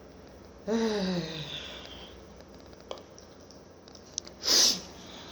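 A person's voiced sigh, falling in pitch, about a second in, then a short, sharp burst of breath near the end.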